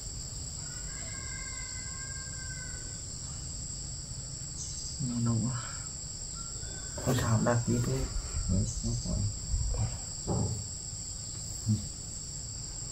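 A steady, high-pitched insect chorus. Over it, brief indistinct low voice sounds come several times in the second half.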